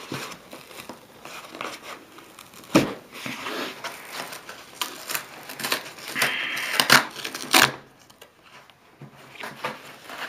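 A cardboard mailer box being pried and torn open by hand: scraping, crinkling and sharp snaps of the flaps, with a longer tearing rip a little after six seconds.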